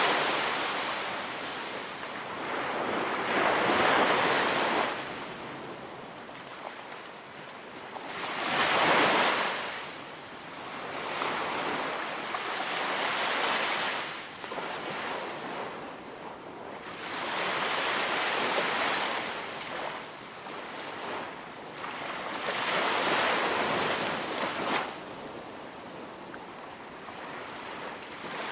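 Ocean waves breaking and washing up a beach, swelling and fading every few seconds, with a little wind.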